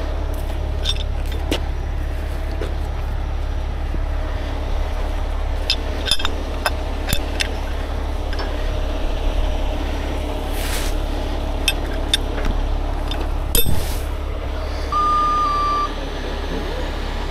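Heavy rotator tow truck's diesel engine running steadily during a lift, with scattered metal clicks and clanks from the rigging. A single electronic beep about a second long sounds near the end.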